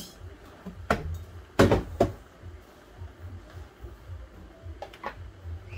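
A few knocks and clunks as a kitchen cupboard and the containers in it are handled, the loudest about a second and a half in, with fainter clicks near the end.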